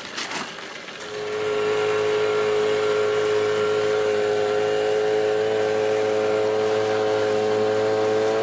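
Small outboard motor on an inflatable dinghy rising to a steady run about a second in and holding an even pitch as the dinghy motors across the water, after a brief clatter of bags and gear being loaded.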